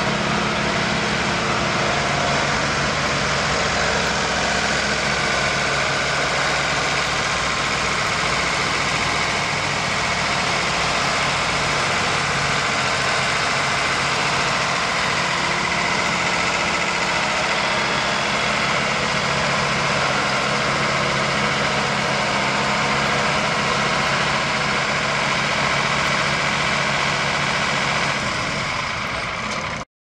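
Caterpillar 3208 V8 diesel engine of a White Field Boss 4-150 articulated tractor running steadily as the tractor drives slowly; the sound fades out near the end.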